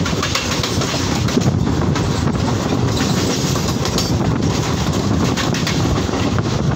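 An oncoming Mumbai suburban electric local train passing close alongside on the adjacent track: a steady rush of noise with many sharp rail clicks, heard from the open doorway of a moving train with wind on the microphone. The passing noise falls away right at the end.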